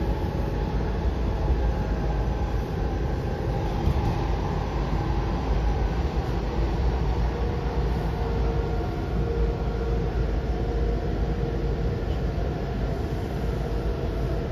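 Washington Metro Silver Line train running between stations, heard from inside the railcar: a steady rumble with a faint whine that grows a little stronger around the middle.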